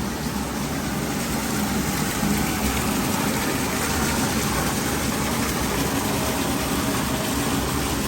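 Water rushing steadily down a kitchen drain that has just been cleared of a grease and waste clog.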